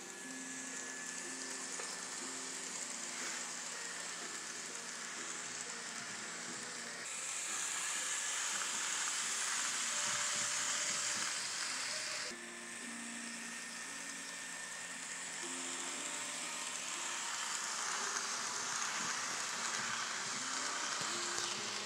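Quiet background music of short held notes over a steady hiss. The hiss grows louder for about five seconds partway through, then drops back abruptly.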